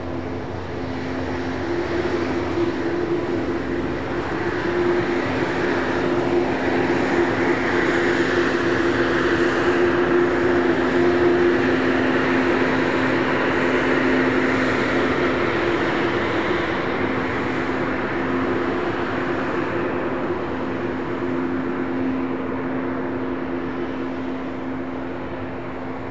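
Airbus A220-300's Pratt & Whitney PW1500G geared turbofan engines running as the airliner passes, swelling to a peak about ten seconds in and then fading, with two steady low hums under the jet noise.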